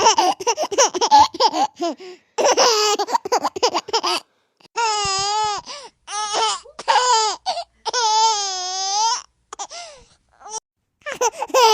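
High-pitched laughter: quick choppy bursts of giggling for about four seconds, then several long, wavering high notes about a second each, with short bursts again near the end.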